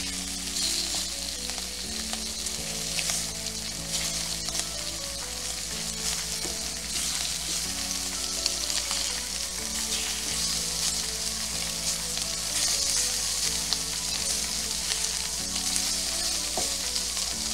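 Sausage patties sizzling steadily in hot fat in a stainless steel skillet, with a few sharp clicks of a spatula against the pan as the patties are turned over.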